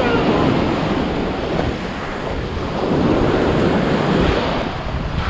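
Surf breaking and washing up the sand in the shallows, rising and falling in waves, with wind rumbling on the microphone.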